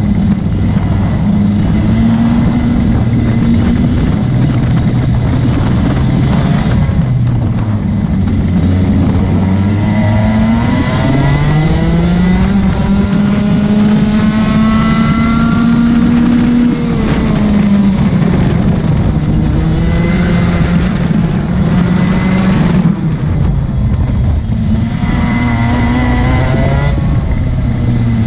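Onboard sound of a racing kart engine under full throttle. Its pitch climbs for several seconds as speed builds down the straight, falls off about two-thirds of the way through as the kart slows for a corner, then rises and falls again through the turns.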